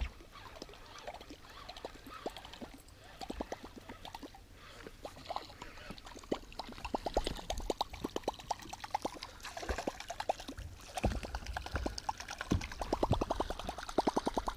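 Topwater musky lure churning across the water's surface on the retrieve, gurgling and splashing in repeated runs of quick clicks that grow denser as it nears the boat.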